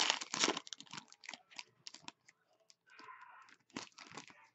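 Foil hockey-card pack being torn open and crinkled in the hands, loudest in the first second, then scattered sharper crinkles.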